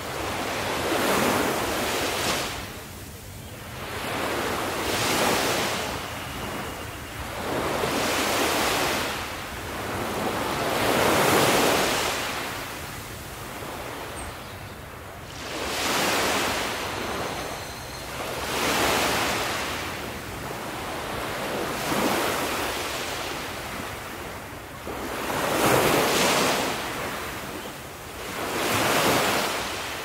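Small waves washing onto a beach, the surf swelling and fading in a slow rhythm roughly every three to four seconds.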